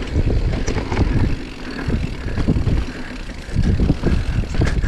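Marin Mount Vision 8 full-suspension mountain bike rolling fast down a dirt trail: a surging low rumble of wind on the microphone and tyres, with sharp clicks and rattles from the bike as it goes over bumps.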